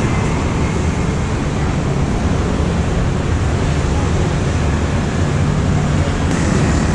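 Steady noise of heavy city traffic, cars and motorbikes passing on a multi-lane road below.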